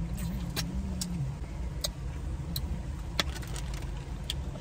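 Scattered sharp mouth clicks and smacks of someone chewing shrimp, about seven in all, over a steady low rumble in the car's cabin. A brief hummed 'mm' sounds in the first second.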